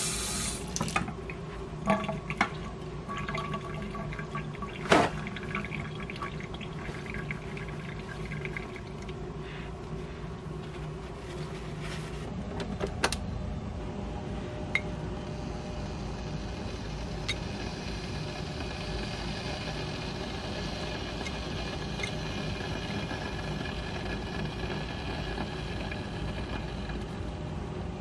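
Kitchen tap running onto a stainless steel sink, shut off about a second in. A few sharp glass and handling clinks follow, the loudest about five seconds in. From about halfway through, water is poured steadily into a glass French press.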